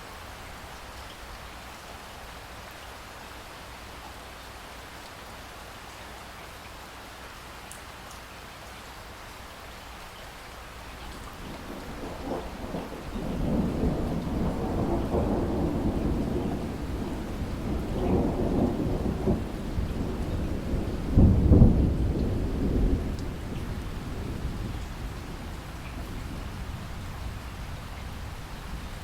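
Steady rainfall with a long rolling peal of thunder. The thunder builds a little under halfway through, rumbles in waves, peaks in a sharp loud clap about three-quarters of the way in, then fades back to the rain.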